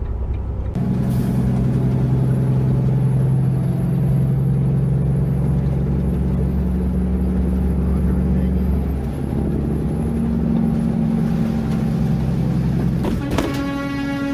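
Steady low drone of a vehicle engine and road noise while driving on a highway. About a second before the end, a vehicle horn starts one long blast.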